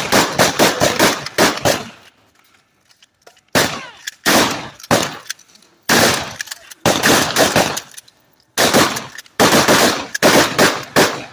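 Shotgun fire in rapid strings of shots with short pauses between strings, including a gap of about a second and a half near the start.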